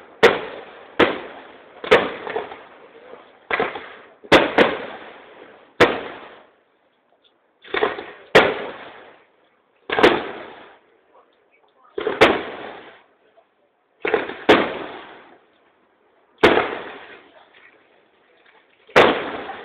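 Aerial firework shells bursting one after another, a sharp bang every one to two seconds, each trailing off in echo. About fifteen bangs, some in quick pairs.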